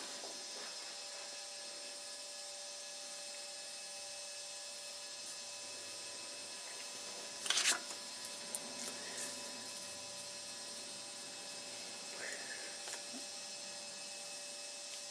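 Steady electrical hum under quiet room tone, with one brief scratchy noise about halfway through and a few faint small sounds later.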